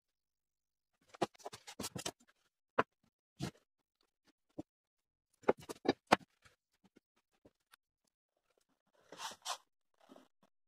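Hands handling a knife blank and a glue-coated handle wrap on a wooden workbench: scattered light clicks and taps with silence between, and a brief rustle about nine seconds in.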